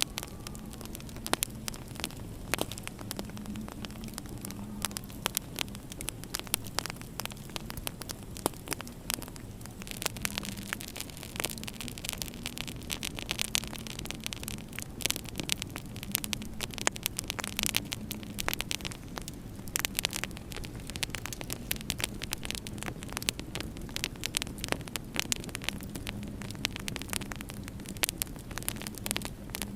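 Wood fire crackling in a fireplace, with frequent irregular pops and snaps over a low steady hum.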